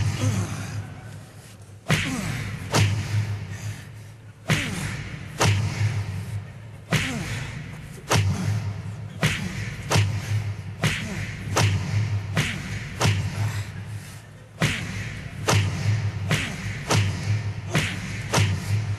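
A run of stage-fight punch and slam sound effects, about one a second. Each is a sharp hit that trails off in a falling tone over a low boom.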